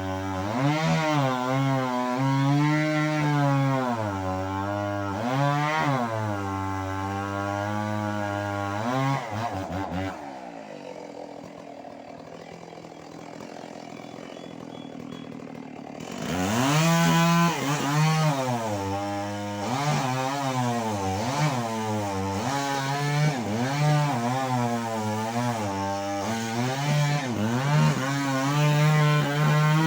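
Stihl MS 381 two-stroke chainsaw running at high revs while cutting into a large durian trunk, its pitch dipping and recovering repeatedly as the chain takes load. About ten seconds in the engine drops back and goes quieter for several seconds, then revs up again and carries on cutting.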